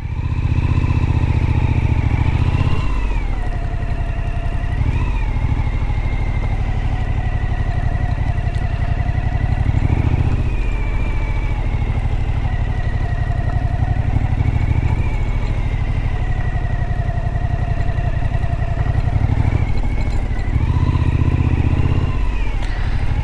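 Suzuki V-Strom motorcycle being ridden at low speed, its engine running steadily. The engine note swells and eases several times as the throttle is opened and closed.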